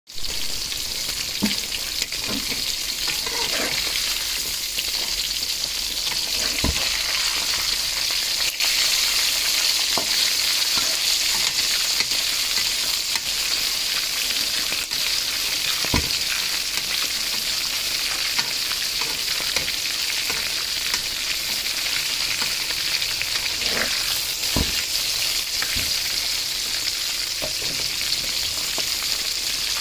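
Chicken frying in hot oil with a steady sizzle. A few short knocks sound now and then.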